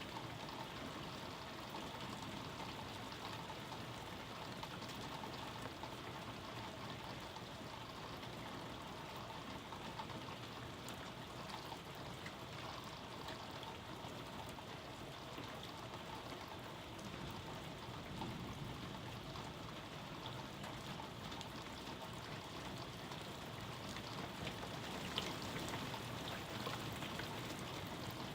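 Steady rain falling in a thunderstorm, a continuous hiss of drops with fine ticking of individual drops, getting a little heavier near the end.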